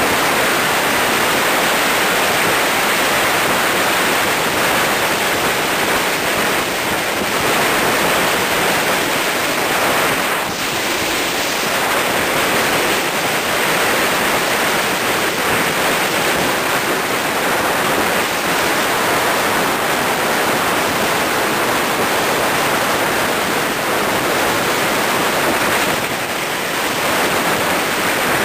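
Steady rush of wind over the microphone mixed with road noise, from a camera moving fast down a road.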